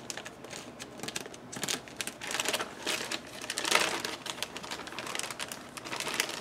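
Rustling and crinkling of scrap bags and ribbon being rummaged through by hand: an irregular run of light crackles and clicks, loudest a little before four seconds in.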